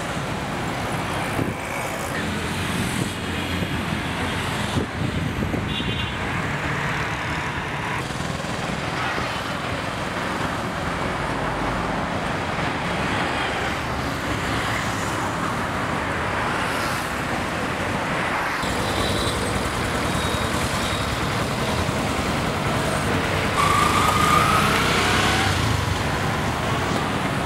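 Busy road traffic: a steady wash of engines and tyre noise, louder for a couple of seconds near the end, with a short rising engine note.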